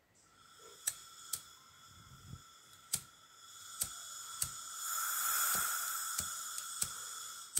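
Butane gas hissing out of an unlit brass torch nozzle on a butane canister, a steady hiss with a whistling tone. It swells louder about five seconds in and cuts off suddenly at the end. Several sharp clicks sound over it.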